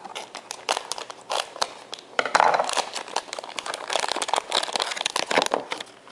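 Foil wrapper of a vinyl collectible figure crinkling in dense, irregular bursts as it is handled and pulled open.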